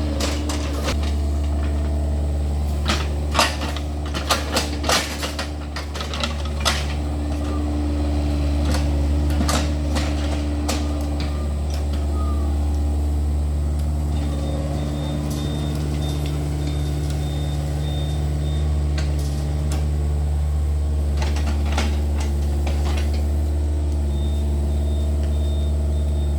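Yanmar excavator's diesel engine running steadily under working load, with clusters of sharp knocks a few seconds in and again near the end as the machine digs.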